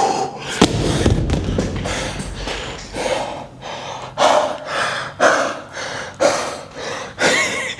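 A man breathing hard from exertion, with forceful gasps and exhales about once a second, as he strains through a set of weight lifting.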